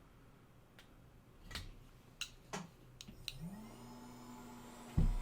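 A few light clicks and knocks, then a fume extractor's fan switches on and spins up, its hum rising and settling into a steady tone. A loud thump comes near the end.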